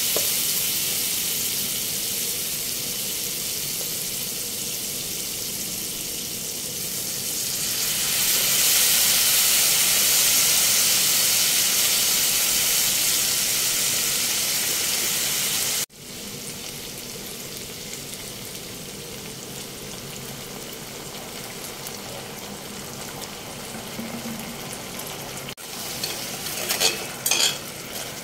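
Chopped onions and vegetables sizzling in a hot steel wok while being stir-fried; the sizzle swells about a third of the way in as soy sauce goes into the pan, then drops to a quieter hiss. Near the end a few sharp clinks and scrapes of the spatula against the wok.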